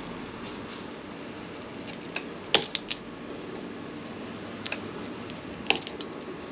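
A few short sharp clicks and snaps, the loudest about two and a half seconds in and another near the end, as a utility knife works at an old rubber handlebar grip to cut it off the bar.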